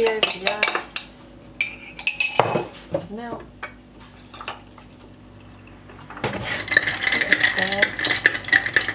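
Ice cubes clinking and knocking in a glass as coffee is poured over them, then, from about six seconds in, the iced coffee being stirred briskly, a fast run of clinks against the glass.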